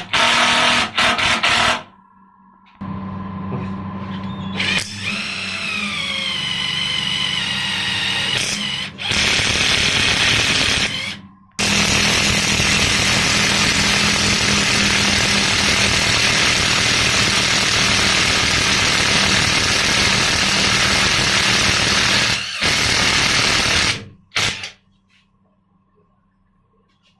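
Model 1013 impact wrench run in bursts: a few short trigger pulls, a few seconds with the motor speed rising and falling, then one long continuous run of about ten seconds that stops near the end.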